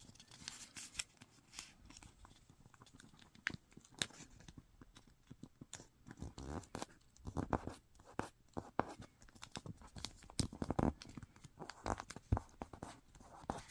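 A sheet of origami paper being folded and creased by hand, with irregular crinkling and sharp little crackles as the fold is pressed flat.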